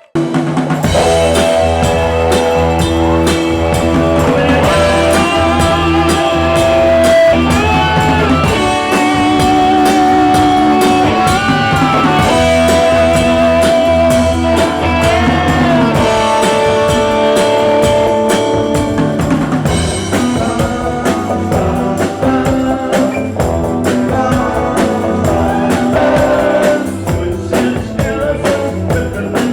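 Rock music with a singer, guitar and drums, starting suddenly at full loudness.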